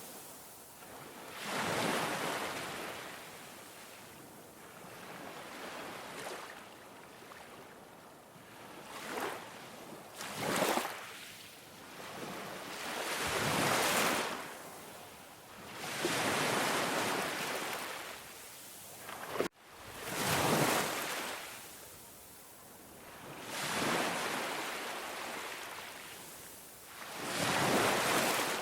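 Ocean waves breaking on a beach, surging and washing back about every three to four seconds. There is a brief sudden dropout in the sound about two-thirds of the way through.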